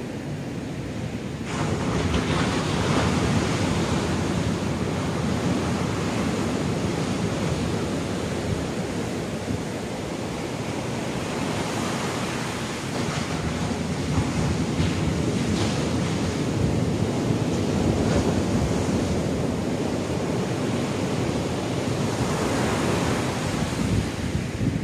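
Ocean surf breaking and washing up a sandy beach, a continuous rushing that swells about a second and a half in, with wind buffeting the microphone.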